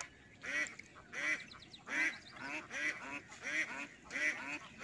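Duck quacking: a run of short calls, about two a second, each rising and falling in pitch.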